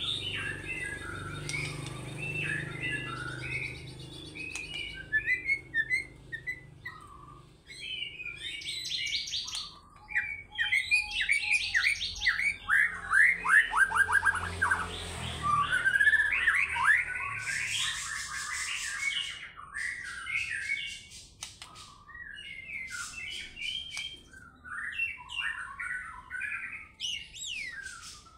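White-rumped shama (murai batu) singing a long, varied song of whistled and chattering phrases, with a loud run of fast repeated sweeping notes about halfway through.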